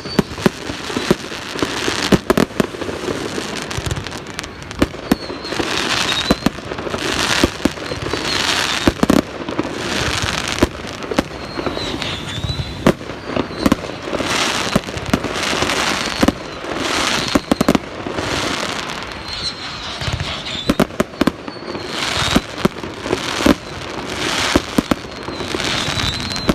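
Fireworks going off in a display: a dense, continuous run of sharp bangs, many close together, over a constant noisy background of bursts.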